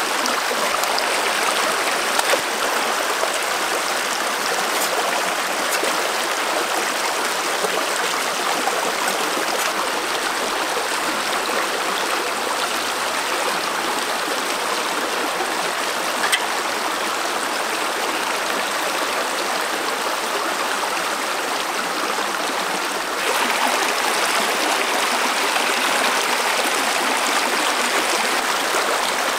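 Shallow stream rushing steadily over rocks, a constant splashing wash of water that gets slightly louder about three-quarters of the way through.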